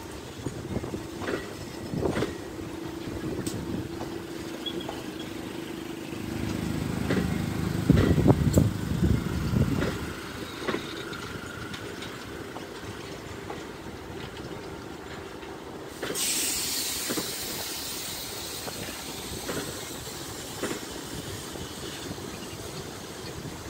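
Indian Pacific passenger train's stainless-steel carriages rolling slowly along the platform track, wheels clicking over rail joints about once a second, with a louder low rumble and hum for a few seconds near the middle. About two-thirds of the way in, a steady hiss of wind on the microphone sets in.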